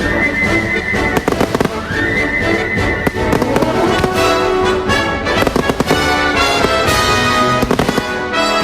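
Fireworks going off in rapid, repeated bangs and crackles over music with long held notes, as in a pyromusical show.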